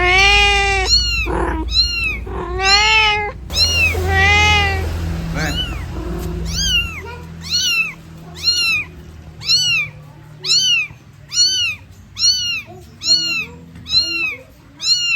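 Mother cat meowing repeatedly while calling for her kittens. A few loud, drawn-out meows come first, then from about six seconds in a steady run of short, higher-pitched mews at roughly one a second. A low rumble runs underneath and stops about seven seconds in.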